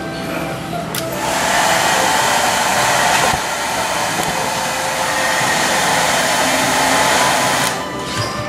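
Handheld hair dryer switched on about a second in, blowing steadily, then switched off near the end.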